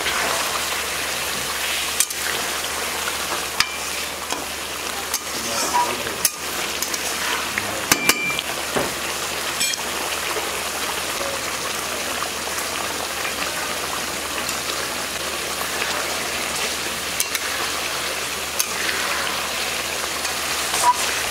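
Hilsa in mustard-paste gravy sizzling steadily in a lidded pan as it cooks down, with scattered sharp pops through it.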